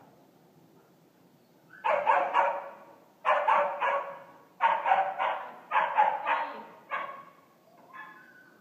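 Young Belgian Malinois barking in about five quick volleys of several barks each, with a fainter one near the end.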